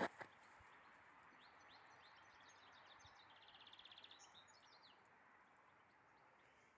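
Faint songbird calls in a quiet forest: a few short chirps, then a rapid, even trill about three seconds in, over a soft background hiss. At the very start there are two last footsteps crunching on snow.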